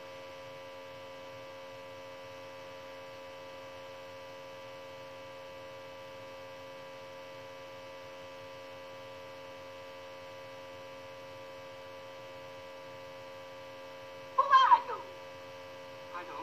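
Steady electrical mains hum: a constant drone made of several fixed tones. About fourteen seconds in, a brief loud burst of sound lasts under a second.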